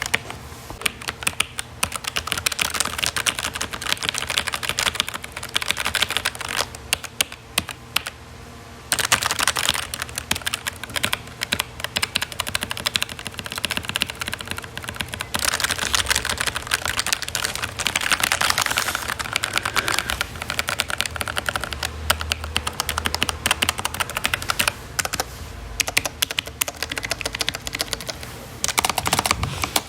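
Typing on a computer keyboard: rapid, continuous key clicks, with a short pause about eight seconds in.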